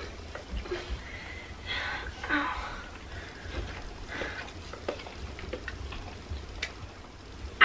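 Quiet breathing and small movements of a person and a large dog lying together on a bed, with a few faint short murmurs and soft clicks.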